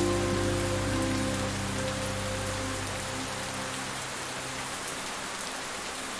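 Steady rain falling, an even hiss, with the last held piano notes dying away over the first few seconds.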